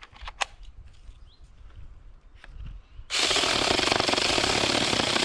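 AOSTOK 6-inch battery mini chainsaw running and cutting into a branch: a loud, steady saw noise that starts about three seconds in and cuts off abruptly after about two seconds. A few light clicks come shortly before it.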